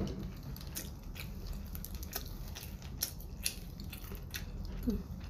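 Close-up eating and handling noises: irregular small clicks and crinkles from chewing and from fingers working a small food packet, over a low steady hum.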